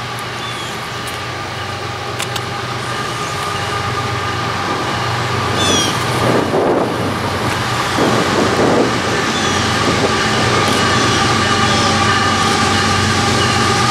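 Diesel-hauled freight train approaching, its locomotives' steady rumble growing gradually louder.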